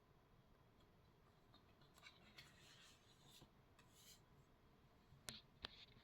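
Faint sketching strokes scratching on paper, then three sharp taps about a second apart near the end.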